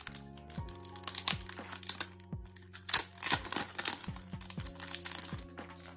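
Clear plastic sleeve crinkling and rustling in irregular crackles as a sticker sheet is slid out of it, loudest about halfway through, over soft background music.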